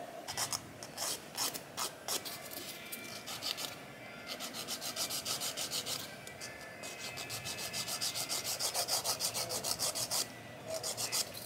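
A nail file rasping back and forth across acrylic false nails, shaping their sides and tip, in quick even strokes at about five a second. There are a few scattered light clicks first, then a short run of strokes and a longer run near the end.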